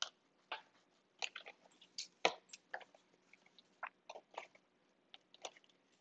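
Hands handling a cardboard juice carton and twine: soft scattered crinkles and clicks, with one sharper click about two seconds in.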